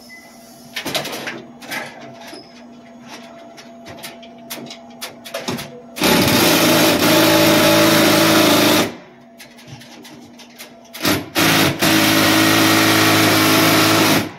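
Cordless power drill running in two sustained bursts of about three seconds each, a steady motor whine. Short trigger blips come just before the second run, and light handling clicks come before the first. The drill is not strong enough to work the fastener loose.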